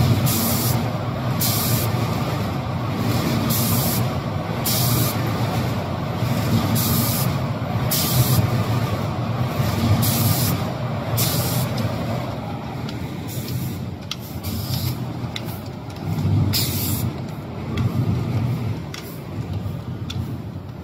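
Automatic paint spraying machine at work: the spray gun hisses in short bursts about once a second as it sweeps over a cabinet door, over the steady hum of the machine. The bursts thin out after about twelve seconds.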